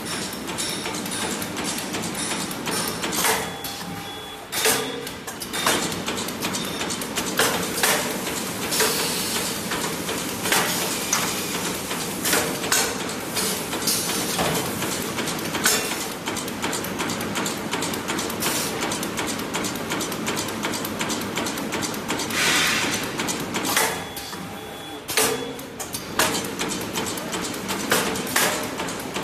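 Polyethylene glove-making machines running: a steady mechanical clatter of repeated clicks and knocks, with a hiss lasting about a second about two-thirds of the way through.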